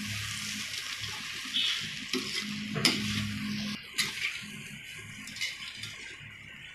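Wooden spatula stirring and scraping poha (flattened rice) in a metal kadhai over the heat, with a light sizzle and two sharp knocks against the pan about three and four seconds in.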